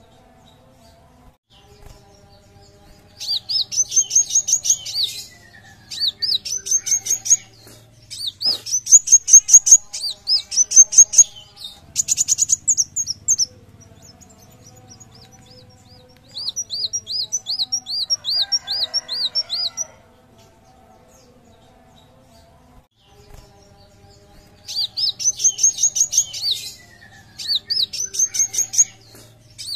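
Copper-throated sunbird (kolibri wulung) singing: about seven bursts of fast, high chirps, each one to three seconds long, with short pauses between and a longer pause past the middle.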